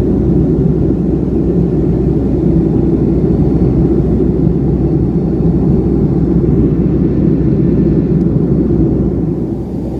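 Steady low rumble of an airliner's engines and airflow in flight, heard from inside the passenger cabin. It eases off slightly near the end.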